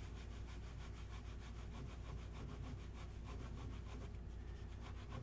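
Faint scratching of a pen on paper as a sketch is drawn, over a low steady hum.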